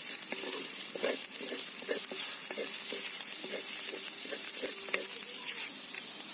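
Shallots and spices sizzling in hot oil in a stone pot (kalchatti) as they sauté, with a spoon stirring and scraping through them at about two strokes a second. Near the end the stirring stops and only the steady sizzle goes on.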